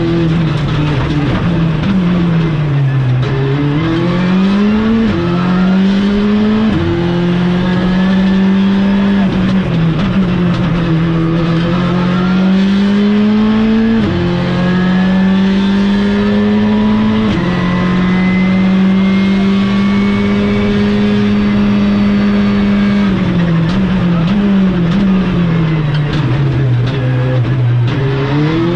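Skoda Fabia Rally2's turbocharged 1.6-litre four-cylinder engine heard from inside the cockpit at full stage pace. It revs up hard through the gears, with the note dropping sharply at each quick sequential upshift, and its pitch falls as the car slows for corners near the start and again toward the end.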